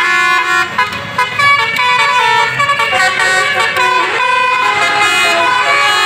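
A bus's basuri telolet horn, a set of multi-tone air horns, playing a fast melody, loud, with several notes sounding together and the notes changing every fraction of a second.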